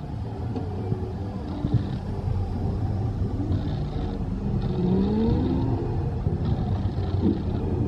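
Steady low rumble heard from on board a slow-moving ride boat on a water channel, with a few brief rising tones about halfway through.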